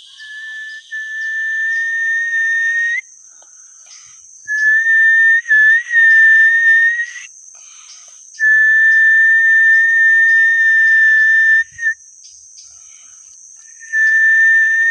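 A person whistling four long, steady, level notes at one pitch, each held about three seconds with short breaks between: the whistling used to call snakehead out of the water before fishing.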